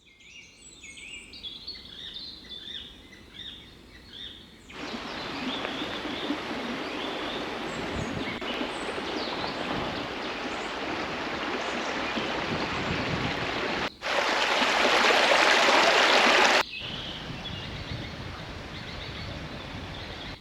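Small birds chirping for the first few seconds, then the steady rush of flowing water cuts in suddenly and runs on. The rush grows louder for a couple of seconds about two-thirds of the way through, then eases back, with birdsong faintly heard over it near the end.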